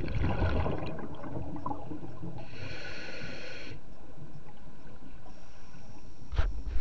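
Scuba regulator breathing heard underwater: a bubbling rumble of exhaled air, a hissing inhale about two and a half seconds in that lasts about a second, then bubbling again. A couple of sharp knocks near the end.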